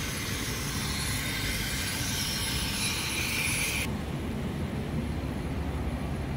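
Fire apparatus engines idling: a steady low rumble, with a hiss over it that cuts off abruptly about four seconds in.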